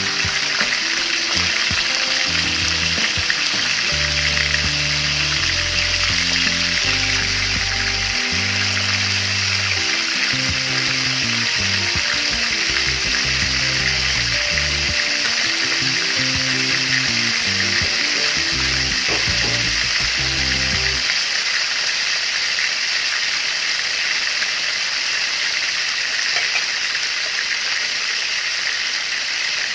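Tilapia pieces frying in hot oil in a pan, a steady loud sizzle. Background music with a low bass line plays under it and stops about two-thirds of the way through.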